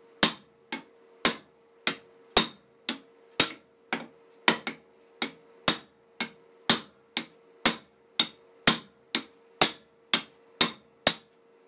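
Steel claw hammer striking an axe and its new wooden handle about twice a second in a steady run of sharp blows, some harder than others, driving the head further onto the handle for a tight fit.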